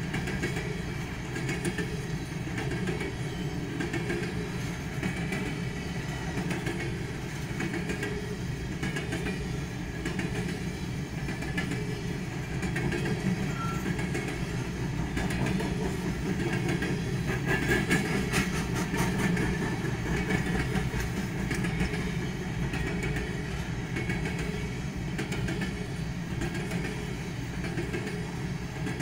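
BNSF coal train's hopper cars rolling past a grade crossing, a steady rumble of wheels on rail heard from inside a car, with a run of sharper clacks around the middle.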